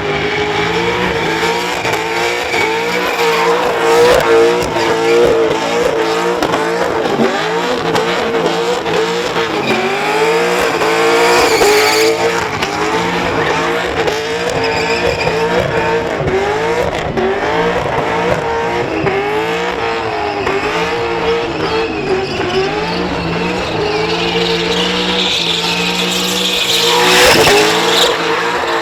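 Holden Commodore burnout car's engine held at high revs, its pitch dipping and rising again and again, with the rear tyres screeching through a burnout. A louder surge comes about 27 seconds in.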